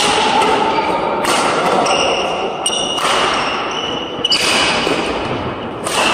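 Badminton rally: rackets striking the shuttlecock about five times, a sharp hit every one to two seconds, with shoes squeaking on the court floor.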